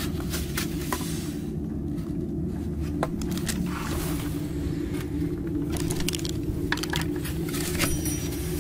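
A steady low rumble, with scattered light clicks and scrapes as foam takeaway boxes are handled. A box lid is pressed shut near the end.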